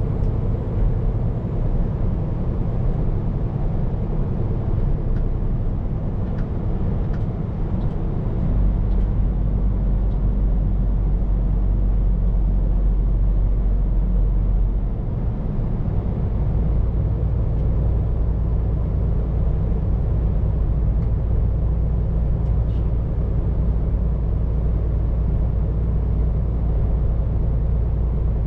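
Scania P410 truck's diesel engine and road noise heard from inside the cab while driving, a steady low drone. The deep rumble changes about eight seconds in and again around fifteen seconds.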